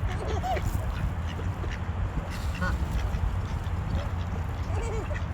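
Ducks quacking while they feed, in scattered short calls over a steady low rumble.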